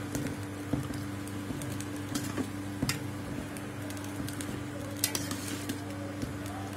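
Steel ladle stirring a thick fish curry in a steel pot, with a few scattered clinks of the ladle against the pot over a steady low hum.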